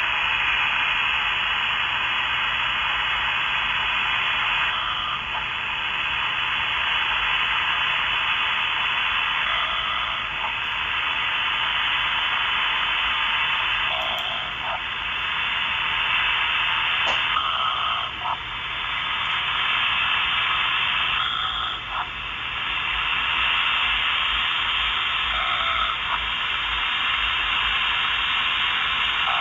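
Radio receiver static: a steady hiss held within a narrow audio band, swelling and fading about every four seconds in a slow rhythm like snoring.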